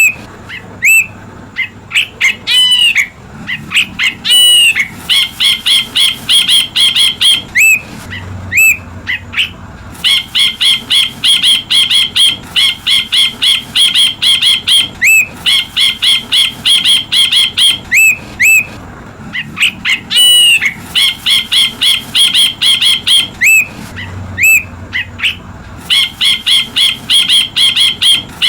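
Ashy bulbul (Hemixos flavala) chirping: long runs of rapid, evenly repeated high chirps, broken every few seconds by a few slurred, arching notes.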